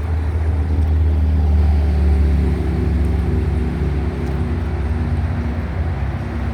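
An engine running steadily: a loud, low hum with a few pitched overtones, swelling slightly about two seconds in.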